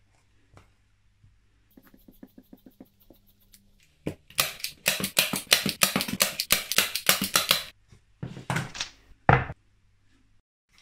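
Utility knife slicing through faux-fur fabric in quick short strokes, about six a second, for several seconds, then a few more cuts near the end, the last one the loudest. Faint rapid clicking comes before the cutting.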